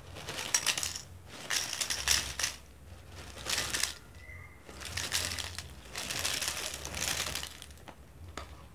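Dry puffed crackers poured from a plastic snack packet into a glass bowl: the packet rustles and the crackers rattle into the bowl in several pours of about a second each.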